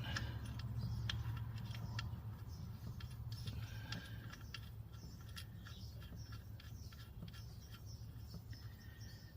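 Light, irregular metallic clinks and rattles of hand tools and hardware being handled while an alternator is fitted, busiest in the first few seconds, over a steady low hum.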